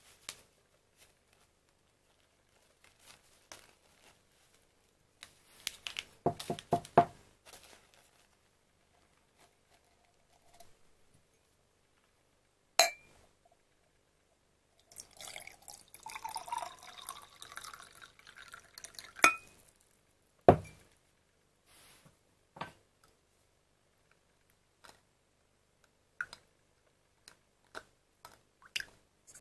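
Glass being handled with sharp clinks and knocks, and liquid poured into a glass for about four seconds midway.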